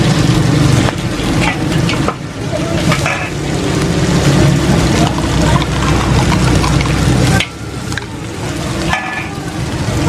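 Food sizzling and frying in a large steel wok while a metal spatula stirs and scrapes across the pan, with short knocks now and then. A strong low steady hum runs underneath and drops away sharply about seven seconds in.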